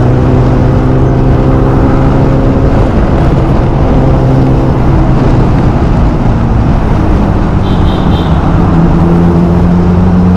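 Sport motorcycle engine running at cruising speed under a steady rush of wind and road noise. Its pitch holds steady, then climbs about nine seconds in as the bike accelerates.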